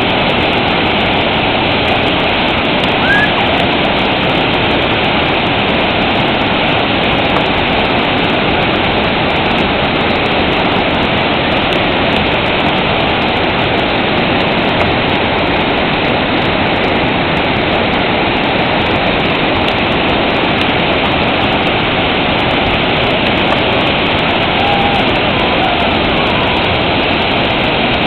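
Waterfall pouring over a rock ledge into a pool: a steady, loud rush of falling water.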